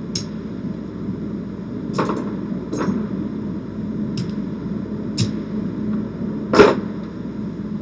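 Casino chips clacking together as they are picked up by hand and gathered off a craps layout: about six separate sharp clicks, the loudest near the end.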